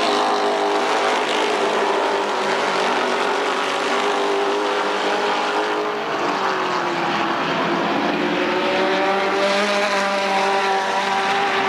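Late model stock car's V8 engine running at speed on a paved oval. The engine pitch falls about six seconds in, then climbs again.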